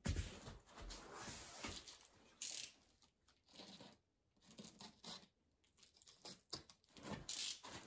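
Cardboard boxes of carpet tiles being shifted and handled, with irregular scraping and rustling of cardboard. There is a sharp knock at the start.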